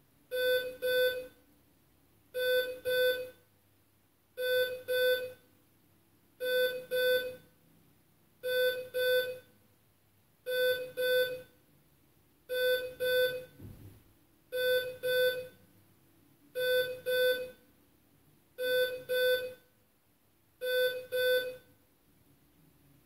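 Door entry intercom ringing with a pitched double ring, repeated about every two seconds. It stops near the end.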